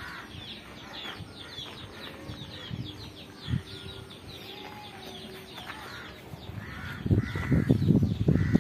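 Outdoor birdsong: small birds chirp in quick, repeated falling notes. Near the end come a few harsher, louder calls along with low thumping sounds.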